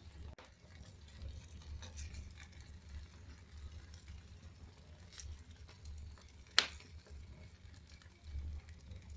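Campfire crackling, with scattered small pops over a low rumble and one sharp, loud pop about six and a half seconds in.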